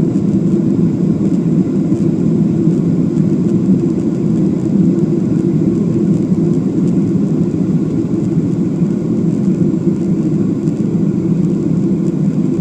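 Airliner cabin noise after takeoff: a steady, loud drone of the jet engines and rushing air, strongest in the low-mid range, with no change in pitch or level.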